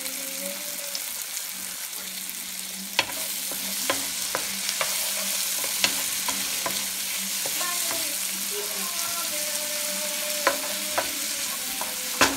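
Sliced onions, bell peppers and mushrooms sizzling in oil in a skillet while being stirred with a wooden spoon. From about three seconds in, the spoon knocks against the pan every second or so.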